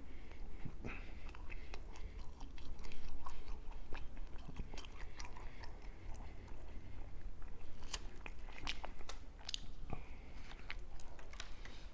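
Close-miked biting and chewing of a concha, the soft sweet bread's sugar-and-cocoa crust crackling in many small sharp crunches with wet mouth sounds.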